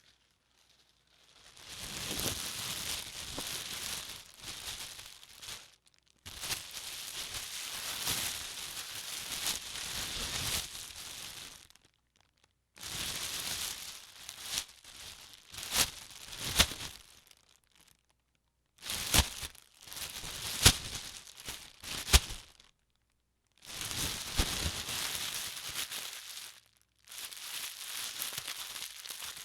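Plastic bag being handled, crumpled and stretched: crinkling rustle in several bouts a few seconds long, separated by short silences, with a few sharp louder crackles in the middle bouts.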